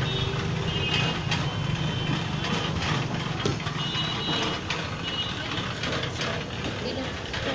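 Steady low hum of the stall's motor-driven sugarcane juice machine running, with light clinks of steel and glass as juice is poured and a glass handed over. A few short high squeals sound near the start and about four seconds in.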